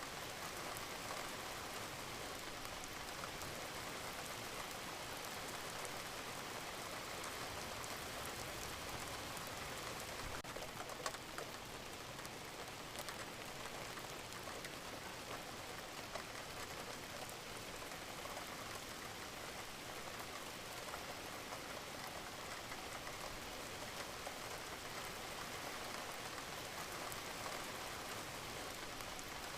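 Steady rain falling in a dense, even patter of drops, with a few louder single drop taps here and there.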